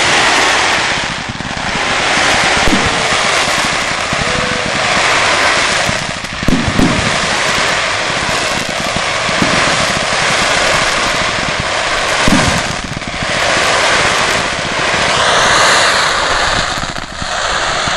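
Fireworks display: a dense, continuous crackle and hiss from crackling shells, with several loud bangs of bursting shells spaced a few seconds apart.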